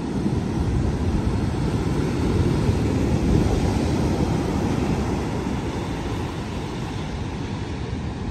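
Wind buffeting the microphone over heavy storm surf breaking on the beach: a loud, steady noise that swells a little a few seconds in, then eases slightly.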